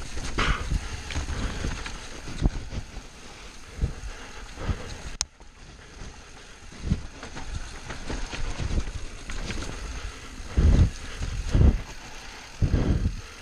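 Mountain bike descending a rough dirt trail: wind buffeting the microphone, tyres rolling over dirt and the bike rattling. There is a sharp click about five seconds in, and heavy thumps over bumps in the last few seconds.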